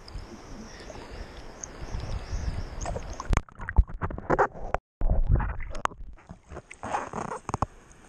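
Water slapping and sloshing against a waterproof action camera held at the surface. About three and a half seconds in, the camera goes under and the sound turns muffled, with knocks and gurgling surges, and cuts out briefly. Splashing and knocks follow as it comes back up.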